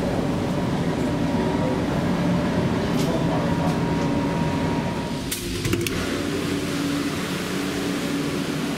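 Steady machinery hum with several held tones, with a few sharp clicks about five seconds in, after which the tones fade into an even rushing noise.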